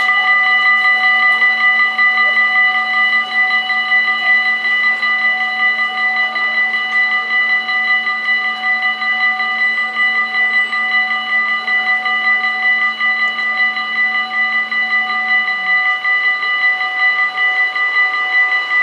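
Dutch automatic half-barrier level-crossing warning bells ringing continuously with a fast, even ringing, the signal that a train is approaching while the barriers are down.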